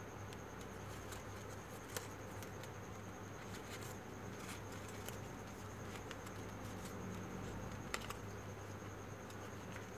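Faint rustling and light clicks of folded computer-paper origami units being handled and tucked into one another, with a slightly sharper click about two seconds in and again near eight seconds, over a steady low hum.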